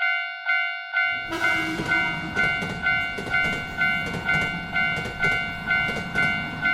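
Japanese railroad crossing bell ringing its steady "kan-kan", about two strikes a second. From about a second in, a train rumbles past with a clickety-clack of wheels over the rail joints.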